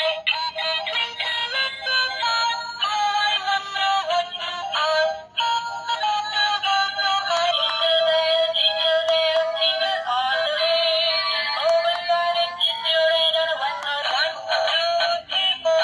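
Baby walker's electronic music panel playing a synthesized toy melody through its small speaker, thin and without bass, showing that the repaired music circuit works again. The tune breaks off briefly about five seconds in, then carries on.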